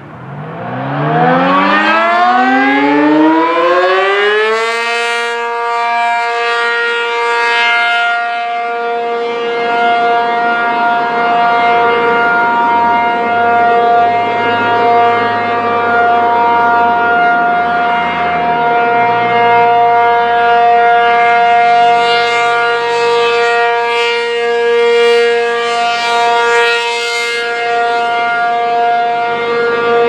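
ACA P-50 rotating electromechanical warning siren winding up from a low pitch to full speed over about four seconds, then holding a steady tone. This is its steady alert signal, sounded as a tornado-warning test. The loudness swells and fades gently as the horn rotates.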